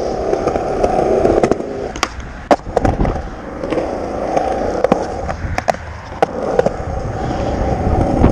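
Skateboard rolling: a steady rumble of the wheels, broken by several sharp clacks.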